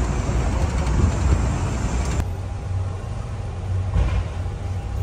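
Steady low engine rumble and street traffic heard while riding a sightseeing bus; a hiss over the rumble drops away suddenly about two seconds in.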